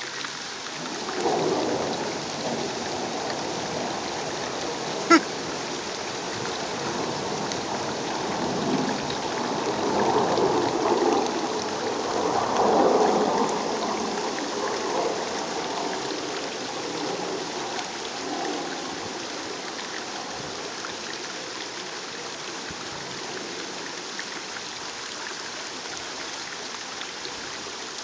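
Steady rushing, water-like noise that swells and fades a few times, with one sharp click about five seconds in.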